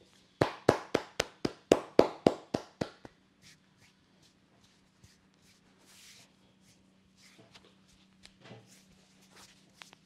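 A masseur's hands slapping the client's raised arm and shoulder in quick massage strokes, about eleven sharp slaps at about four a second, stopping about three seconds in. Then only soft rustling of hands and cloth.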